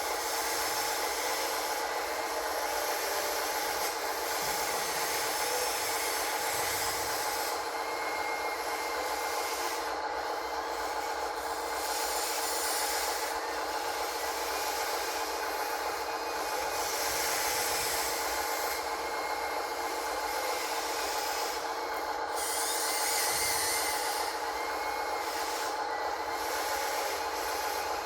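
Radio-controlled construction model machinery at work: a steady electric motor whine that holds the same pitch throughout, with scraping and rasping of dirt and gravel coming and going over it.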